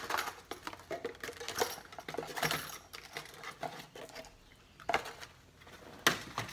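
A plastic lure package crinkling and clicking as it is handled and opened, with light metallic clinks from the buzz bait. Irregular small clicks and rustles, with sharper clicks about five and six seconds in.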